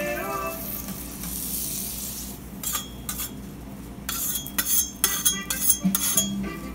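Steel knives scraping and slicing against a trompo of roasting marinated pork. A high sizzling hiss comes first, then from about the middle a quick run of uneven scraping strokes.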